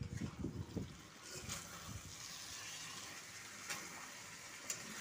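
Yogurt-marinated chicken pieces sizzling as they fry in a steel wok over a high flame while being stirred with a spatula. Knocks and scrapes come first, then a steady sizzle from about a second in, with a couple of sharp clicks of the spatula on the wok near the end.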